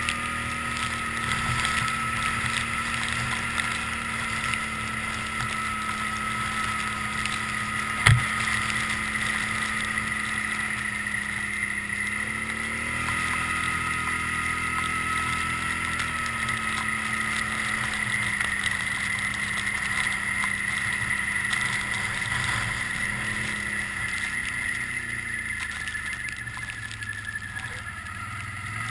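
Can-Am Outlander 800 Max ATV's V-twin engine running under way, its pitch rising and falling with the throttle, with a high whine over it. A single sharp knock about eight seconds in.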